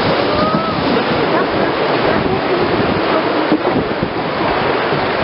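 Rushing white water of river rapids around an open wooden boat, a loud steady roar, with wind buffeting the microphone.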